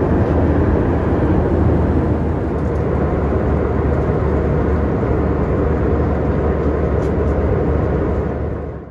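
Steady cabin noise of an Airbus A319 airliner in flight: a continuous rush with a strong low hum underneath. It fades out near the end.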